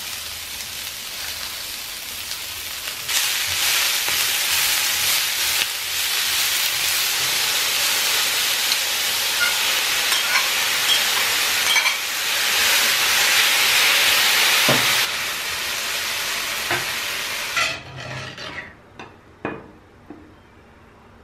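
Onion, celery and bell peppers sizzling and being stirred in a hot cast-iron skillet, with sliced raw chicken added partway through; the sizzle gets louder after about three seconds. It cuts off near the end, followed by a few light scrapes and clicks as the stir-fry is served onto a plate.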